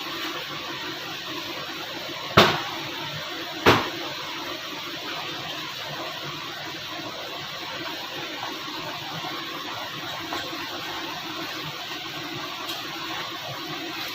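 Two sharp knocks about a second and a half apart over a steady background hiss.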